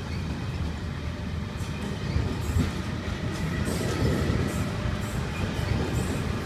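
Italo AGV high-speed electric train rolling past the platform: a steady low rumble, with repeated clicks from the wheels from about a second and a half in.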